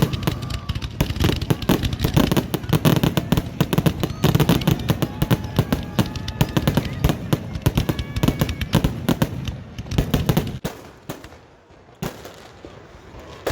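Fireworks display: many bangs and crackling reports in quick, dense succession, dying away about ten and a half seconds in.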